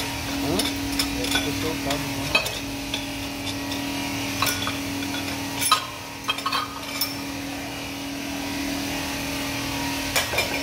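Scattered metal clinks and knocks of a steel cylinder-liner puller being set on and worked in a bore of a bare truck engine block, over a steady low hum.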